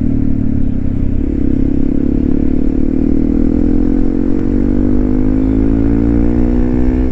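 A Hero Xpulse 200 4V's single-cylinder engine running through a loud Norifumi aftermarket exhaust. About a second in, the engine note starts a long, steady rise in pitch as the bike accelerates.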